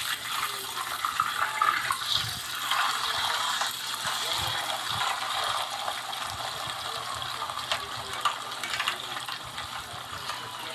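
Running tap water with scattered clicks and scraping as potatoes are handled and washed.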